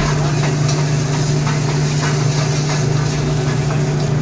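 Steady low mechanical hum of commercial kitchen equipment running, with faint light clicks now and then.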